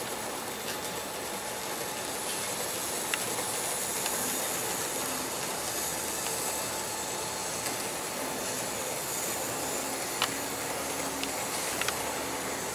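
Model train of hopper wagons running along the layout track: a steady hiss from the running wheels and motor, with a few light clicks, three times.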